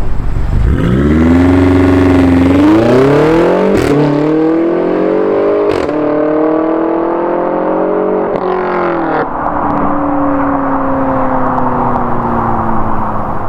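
BMW X5M/X6M 4.4-litre twin-turbo S63 V8 through a Dinan exhaust, accelerating hard through the gears. Its pitch climbs and drops back at each upshift, with a sharp crack at the shifts about four, six and nine seconds in, then holds a steady pull as the pitch slowly falls.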